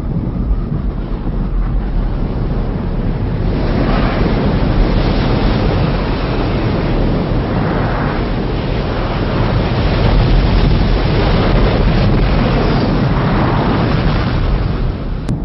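Sound effect of a meteor impact on Earth: a loud, continuous low rumble that swells several times.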